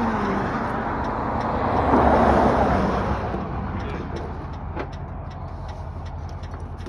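Road traffic going by: one vehicle swells loudest about two seconds in and fades, over a steady low engine hum. A few light clicks come in the second half.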